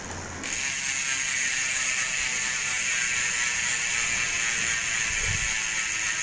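Weapon Attack 9-pawl bicycle hub freewheeling: its pawls ratchet in a fast, steady buzz that starts suddenly about half a second in.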